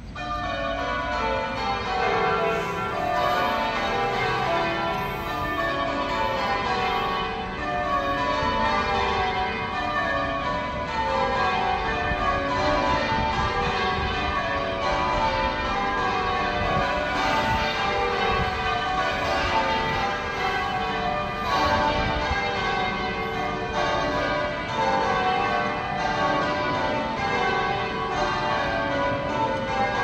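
Manchester Cathedral's tower bells ringing, struck one after another in rows that fall from the highest bell to the lowest, row after row, as in English change ringing.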